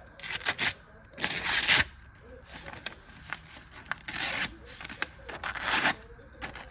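Four short rubbing, scraping noises, each about half a second long, like things being handled and rubbed together.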